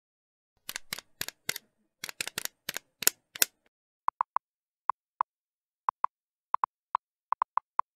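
Editing sound effects for text being typed onto a slide: a run of sharp clicks for about three seconds, then a short gap, then short, irregularly spaced ticks on one pitch, one for each letter that appears.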